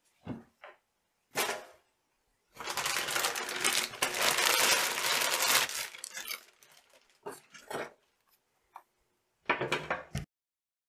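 Plastic packaging crinkling and rustling as a laptop-dock power brick is unwrapped from its bag: a few short rustles, then a long dense crinkle of about three seconds, then scattered handling noises. Near the end there is a brief handling sound as the brick is set down, then the sound cuts off suddenly.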